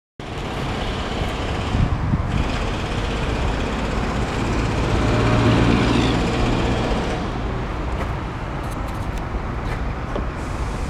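John Deere 4024 four-cylinder diesel engine of a 30 kW standby generator set running steadily at constant speed, getting louder about halfway through. A few light clicks near the end.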